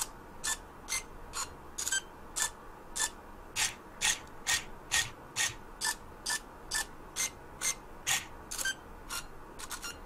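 eX-Mars robotic smart cube's built-in motors turning its faces, about two turns a second. Each turn is a short whirring click at its own pitch, so the turns play a tune. A quicker flurry of turns comes near the end.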